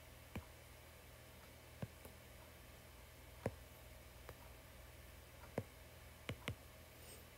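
Faint, scattered clicks of fingers tapping an iPad touchscreen, about eight taps spread over several seconds, two in quick succession near the end, over faint room hum.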